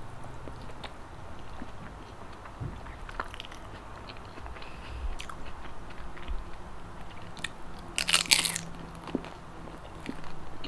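Close-up eating sounds: chewing with scattered small wet clicks, then a loud crisp crunch about eight seconds in, a bite into fried siomai dipped in sauce.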